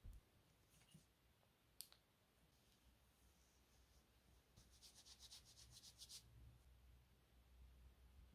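Near silence: faint handling noise, a few soft single clicks early on, then a quick run of faint ticks and rubbing for about a second and a half around the middle, as hair product is handled.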